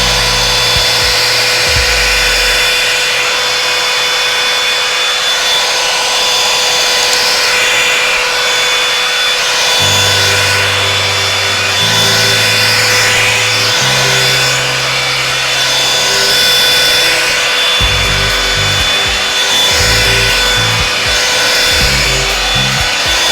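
Revlon One-Step hair dryer and styler brush running on high: a loud, steady rush of air with a thin motor whine.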